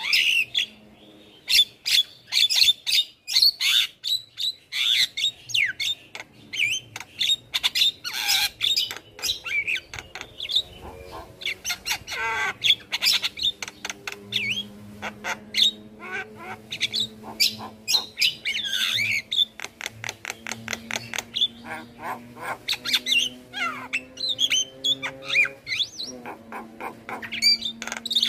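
Javan myna (jalak kebo) calling continuously in a rapid, varied stream of harsh squawks, clicks, chirps and whistled notes, with a low steady hum underneath.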